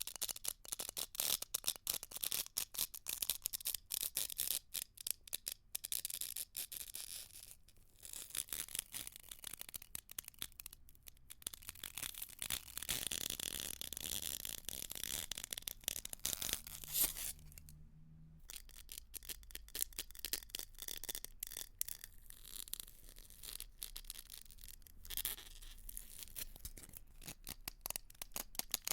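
Ice cracking and being crushed: a dense run of sharp crackles and crunches. Midway it becomes a steadier grinding stretch, then breaks off briefly about two-thirds through before the crackling resumes.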